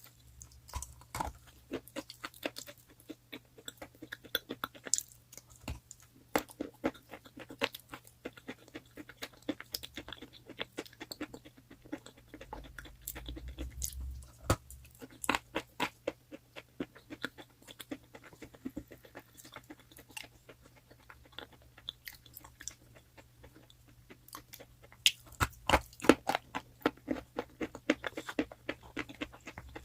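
Pieces of crunchy chalk being bitten and chewed: irregular sharp crunches, coming thickest and loudest about three-quarters of the way through.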